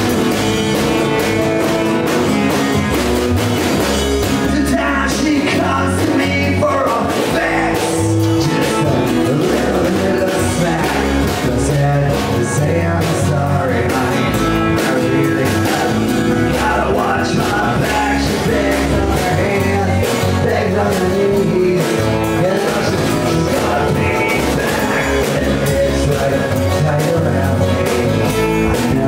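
Live rock band playing: guitar, electric bass and drum kit, with a male lead vocal singing over them from a few seconds in.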